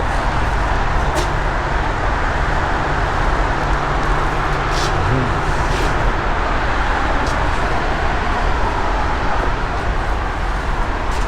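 Steady rumble of vehicle traffic, with a faint low engine drone in the first half and a few light clicks.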